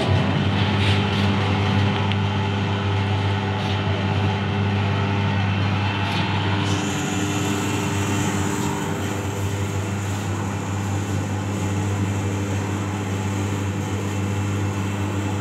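Rotary photopolymer plate washout machine running, its motor-driven drum turning with a steady electric hum. A higher hiss joins about seven seconds in.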